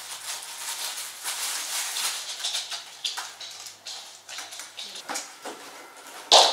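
Rustling fabric and scattered light clicks and clacks of a photo softbox being assembled on a light stand, with one sharp, loud clack near the end.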